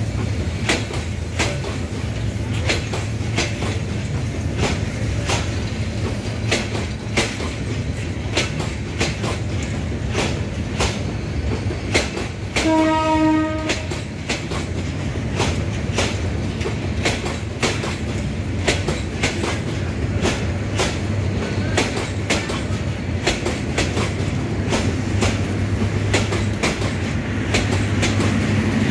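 Bangladesh Railway passenger coaches rolling past, their wheels making a regular clickety-clack over the rail joints above a steady low rumble. Near the middle, a train horn sounds once, for about a second.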